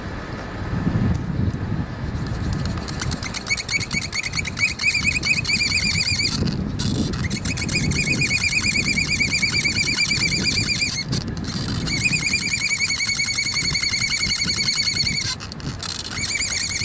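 Hand-drill fire spindle with a bamboo tip being spun back and forth in a wooden hearth board, squealing loudly with a fast wavering rhythm over a low rubbing grind. The squeal breaks off briefly three times.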